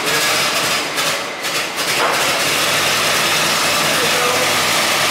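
Ford Model T's four-cylinder flathead engine idling in a steady, even run, with a brief dip in level about a second in.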